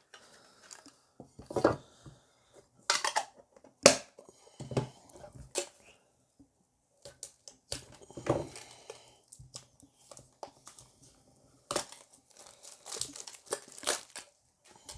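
Cellophane shrink wrap being torn and peeled off a small metal card tin, crinkling and crackling in irregular bursts.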